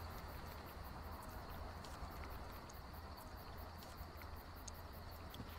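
Faint outdoor ambience: a steady, rapidly pulsing high insect chirring over a low rumble, with a few faint ticks.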